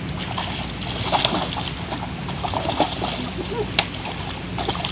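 Water splashing in short, irregular bursts as a hooked fish thrashes at the surface and a landing net is worked through the shallows, over a steady low rush of wind and river.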